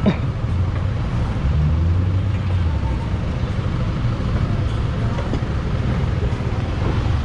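Motor vehicle engine running amid steady road and traffic noise; the low engine sound swells for a second or so about one and a half seconds in.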